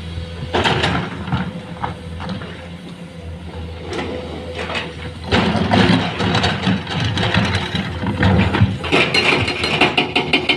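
Heavy construction machinery running with a low engine drone and irregular metal knocks and clanks; it grows louder about five seconds in, and a fast clicking rattle comes in near the end.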